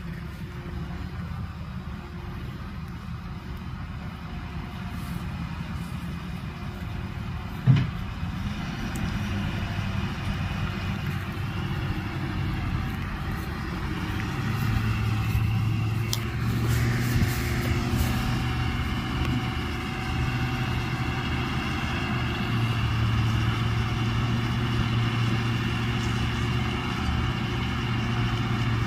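Heavy engines of a big tractor and a stuck garbage truck running under load as the tractor drags the truck through a ditch by a chain. The engine hum grows louder and steadier about halfway through, and there is one sharp knock about eight seconds in.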